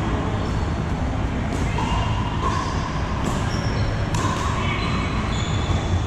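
Pickleball paddles popping against the plastic ball during a rally, a few sharp hits spaced a second or two apart, echoing in a large hall over steady background noise and chatter from other courts.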